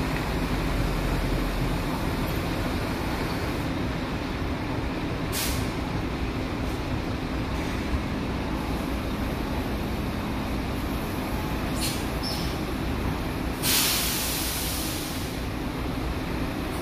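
Steady rumble of vehicle engines and machinery, broken by short bursts of hiss like air-brake releases; the longest and loudest hiss comes about fourteen seconds in and lasts about a second and a half.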